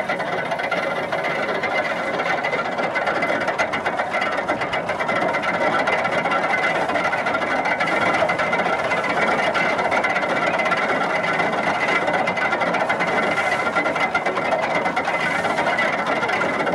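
Horse-driven wooden-drum threshing machine and its gearing running: a steady mechanical whir and rattle with a constant high whine as sheaves are fed into the drum.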